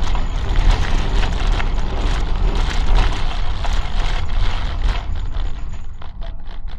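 A Prague tram running along its track: steady rumble of steel wheels on rails with a spray of clicks and knocks, growing quieter near the end, where single knocks stand out.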